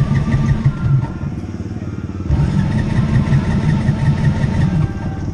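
ATV engine running at low speed, its revs rising twice: briefly at the start and again for about two and a half seconds from a couple of seconds in.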